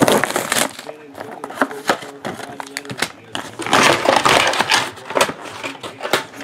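Cellophane shrink-wrap on a trading-card box crinkling as it is torn off and handled, with a louder stretch of crinkling about four seconds in.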